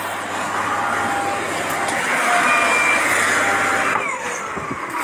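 Dump truck driving along, heard from its cab: steady engine and rolling noise.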